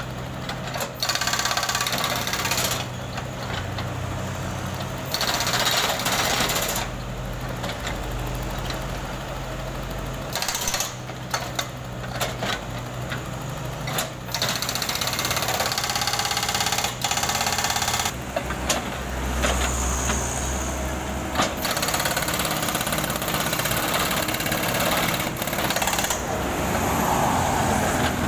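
Hydraulic breaker on a Komatsu PC78US mini excavator hammering rapidly, breaking up asphalt road surface, in several bursts with short pauses between them. The excavator's engine runs steadily underneath.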